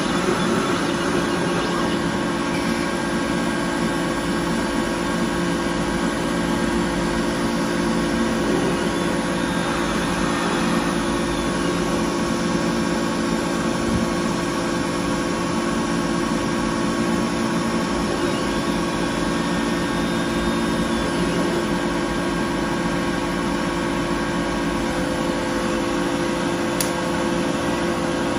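Desktop laser cutter running, with a steady hum from its fans and motors. Faint higher whines come and go twice as the head traces the cut, and there is a single sharp click near the end.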